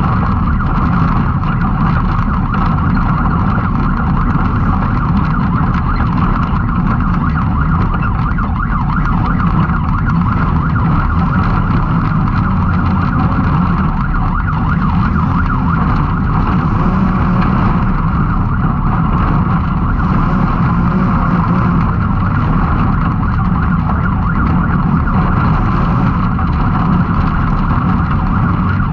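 Can-Am Maverick X3's turbocharged three-cylinder engine running at steady high revs under race load, loud and unbroken.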